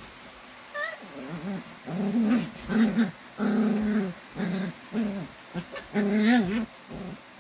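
Small dogs growling at each other in rough play: a short higher whine about a second in, then a string of growls, each about half a second to a second long.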